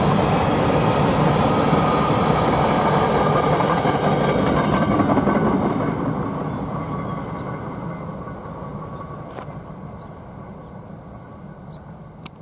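Covered hopper cars of a freight train rolling past, steady wheel and rail noise; about halfway through the last car goes by and the sound fades away as the train recedes.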